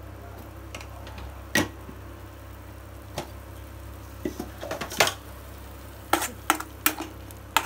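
Steel spoon clinking and scraping against a frying pan as paste is stirred: a few separate knocks, then a quicker run of clinks near the end, over a steady low hum.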